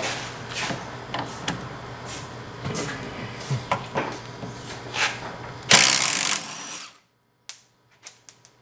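Metal clinks and taps of a wrench being set on a sway bar link nut, then a short burst of about a second from a cordless Milwaukee impact wrench loosening the nut.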